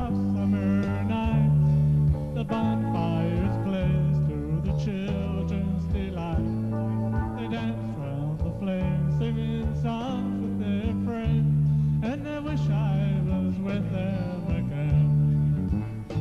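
Live country band playing an instrumental intro: an electric guitar picks a wavering lead melody over a steady bass line and drums.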